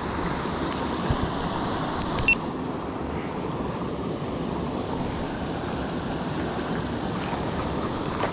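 Small stream rushing steadily over rocks, with a few faint clicks in the first couple of seconds.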